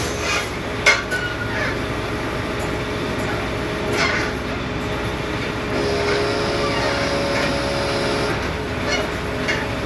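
Hydraulic crane on a delivery lorry running steadily as its block grab lowers a pack of hollow concrete blocks, with a sharp clank about a second in and another knock around four seconds. A higher whine joins the drone for a couple of seconds past the middle as the crane moves.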